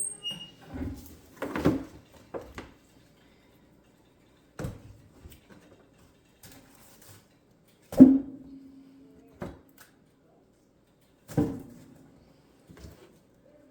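Scattered knocks and bumps, a few seconds apart. The loudest, about eight seconds in, rings on briefly with a hollow tone.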